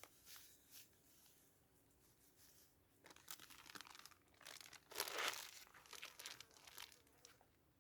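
Faint crinkling and rustling of a plastic packet of bought groundbait being handled. The rustles come in scattered bursts, mostly from about three seconds in, and are loudest around five seconds.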